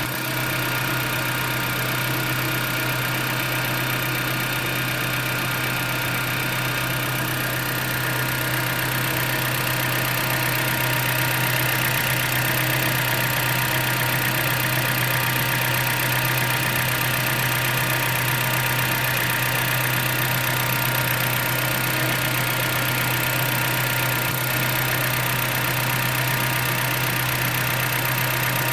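2010 Jeep Patriot's four-cylinder engine running steadily, likely at idle, with the ticking noise its owner is recording.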